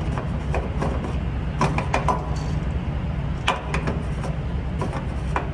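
Semi truck's diesel engine running with a steady low drone, with irregular sharp clicks and knocks over it.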